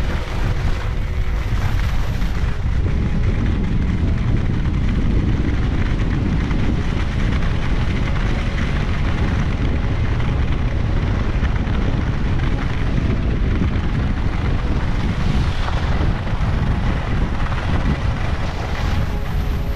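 Wind buffeting an action camera's microphone while skiing downhill at speed: a loud, steady rush of noise, heaviest in the low end.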